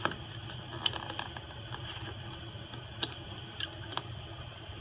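Small sharp clicks and taps of repair tools against an iPhone SE's internal parts as the motherboard is pried up. About five scattered clicks, with the loudest near the start and about a second in, over a low steady hum.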